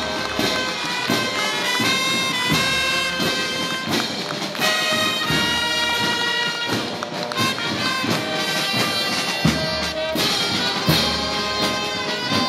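Brass band of trumpets, trombones and sousaphones playing a march-time pasacalle with a steady beat.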